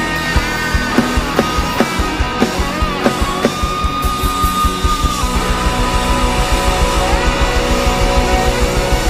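Live rock band playing an instrumental passage: electric guitars over bass and drums with a steady beat. About three seconds in, a guitar holds a long note that bends up slightly at its start.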